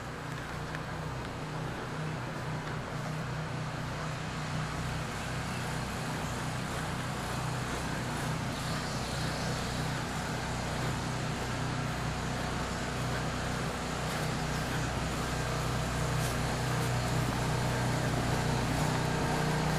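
Gasoline generator engine running with a steady hum, growing gradually louder. The owner takes the sound for the generator running out of gas.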